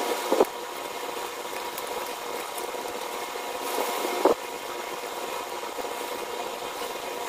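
Plastic shrink wrap being torn and peeled off a Blu-ray case by hand, giving a couple of short crackles, the louder one about four seconds in, over a steady room hum and hiss.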